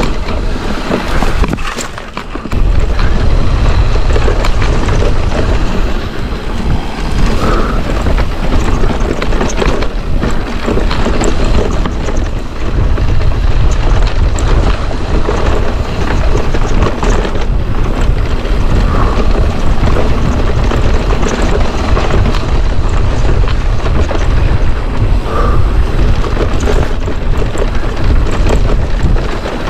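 Wind buffeting a helmet or bike-mounted action-camera microphone while a mountain bike rattles and knocks over a rocky trail at speed, with a steady low rumble and many sharp clatters.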